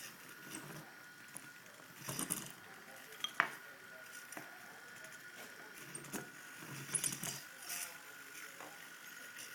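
Servo-driven robot arm at work: a faint steady high whine with scattered light clicks and knocks as it moves and handles small objects.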